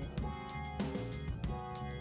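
Background music with guitar and a steady drum-kit beat.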